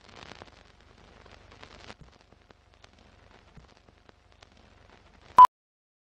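Film countdown leader: faint crackle and scattered ticks like an old film running through a projector, then one short, loud beep near the end, the two-pop that marks the end of the countdown.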